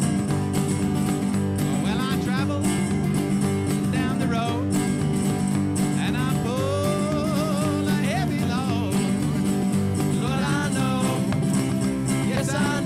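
Live blues band playing an instrumental passage, a lead line bending and wavering in pitch over a steady beat.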